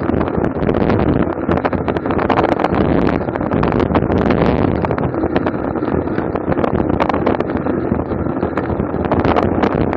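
Wind buffeting the microphone of a camera on a racing bicycle, a loud, gusty rush with road and tyre noise underneath.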